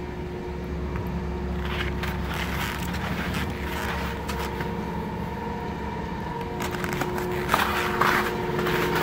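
Von Roll double chairlift's machinery humming steadily at the loading station, with scattered clicks and two sharp knocks near the end as a chair comes around and is boarded.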